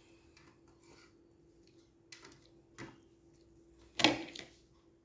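Mostly quiet room with a faint, steady low hum, a couple of faint ticks, and one sharp knock about four seconds in.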